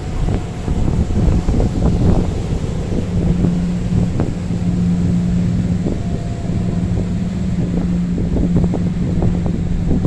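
Steady drone of boat engines under heavy wind buffeting on the microphone, with waves breaking and crashing.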